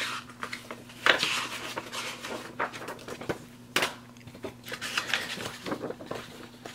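Paper rustling and sliding as a printed game manual and rule sheets are lifted out of a cardboard game box and handled, with a couple of sharper paper snaps about a second in and just before four seconds in.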